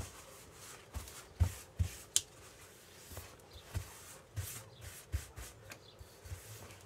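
A wipe rubbed back and forth over a sheet of laminated plastic on a tabletop: irregular wiping strokes, with a few soft knocks, the loudest about a second and a half in.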